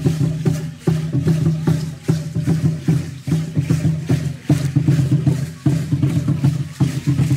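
Aztec ceremonial dance music: a steady, driving drum beat with strong low, ringing strokes, mixed with the rattling of the dancers' seed-pod ankle rattles.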